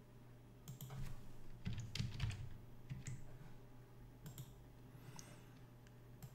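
Faint computer keyboard typing and mouse clicks: a quick run of keystrokes in the first three seconds, then a few scattered single clicks.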